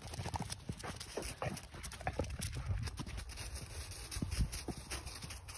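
Footsteps and paws crunching on a frosty gravel track: many irregular sharp crunches, several a second, over a steady low rumble.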